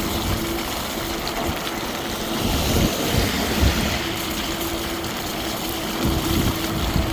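Riding a PuckiPuppy Bulldog e-bike on a snowy road: steady wind rush on the microphone and rumble from the tyres, with a thin steady hum that cuts out and comes back a few times.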